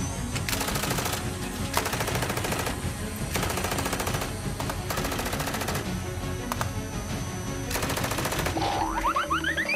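Short bursts of rapid-fire rattling, like machine-gun fire, repeated about six times over background music, with rising whistling glides near the end.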